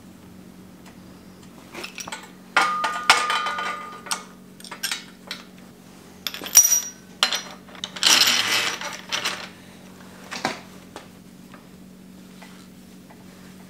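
Steel headset-press parts clinking and rattling as the threaded rod, guides and headset cups are fitted through a bicycle head tube: several bursts of metallic clatter, with a sharp clink in the middle and a longer rattle a little later, then quiet handling near the end.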